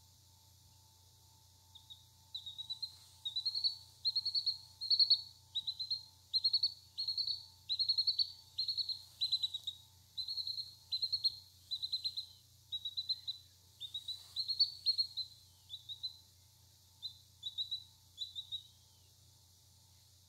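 Three-day-old silkie-cross chick peeping over and over: high, falling peeps about two to three a second, starting about two seconds in and stopping shortly before the end.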